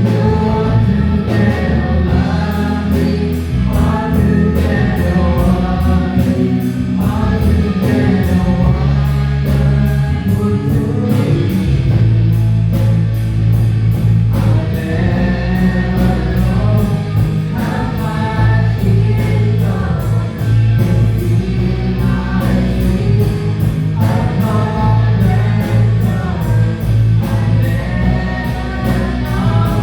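A church worship group singing together with a live band during a sound check: many voices over a steady beat and a deep bass line.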